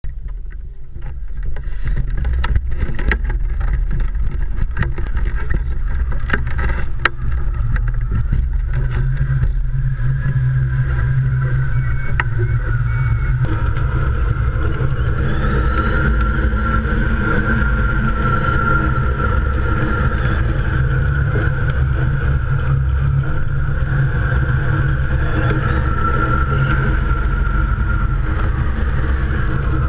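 Wind rushing over a camera mounted on a hang glider's wing: a steady low rumble of wind on the microphone, with scattered knocks and rattles in the first few seconds and a wavering high whistle over the rumble from about halfway.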